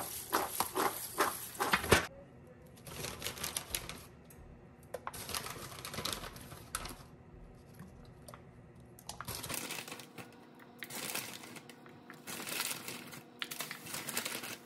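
Kitchen food-prep sounds: quick, even knocks, about five a second, for the first two seconds, then intermittent rustling and crinkling.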